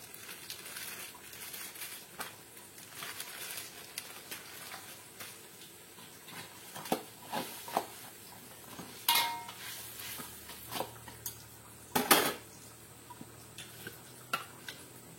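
Cooking utensil clinking and scraping against a cooking pot, with scattered knocks, the loudest about nine and twelve seconds in.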